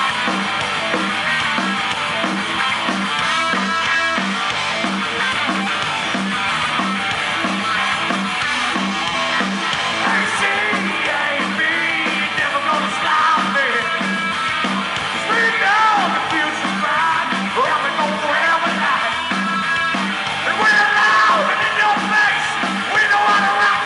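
Live punk rock band playing with electric guitars over a steady driving beat. Shouted vocals come in from about halfway.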